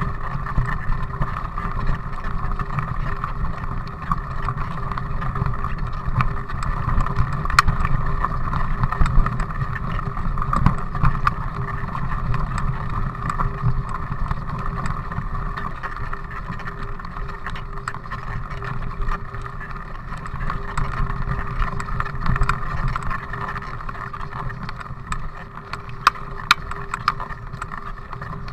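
Mountain bike rolling up a loose gravel climb: a steady rumble of tyres on stones, with scattered clicks and rattles from the bike, heard through a bike-mounted camera. A few sharper clicks come near the end.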